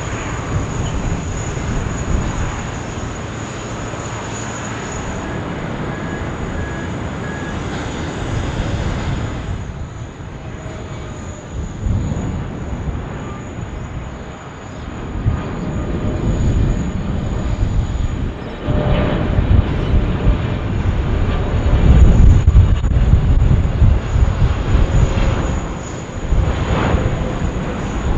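Boeing 777 airliner on approach, its jet engines rumbling as it comes in to land, growing louder in the second half and loudest near the end.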